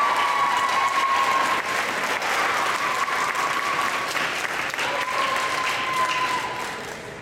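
An audience applauding steadily, with a long held cheer over the clapping. The applause dies away near the end.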